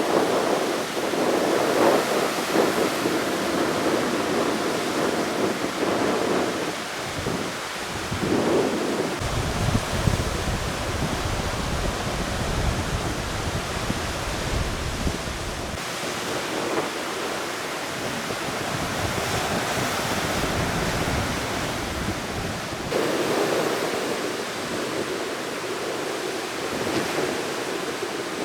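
Heavy surf breaking on the shore under strong wind, a continuous rushing noise. From about a third of the way in until just past the middle, wind buffets the microphone with a deep rumble.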